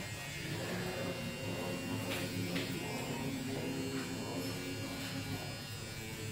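A steady low electric buzz, with a few faint scrapes of a straight razor drawn across lathered stubble.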